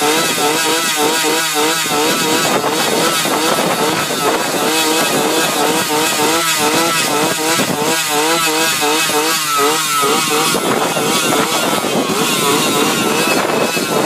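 A steady engine-like mechanical noise with many short, repeated pitched calls over it, several a second.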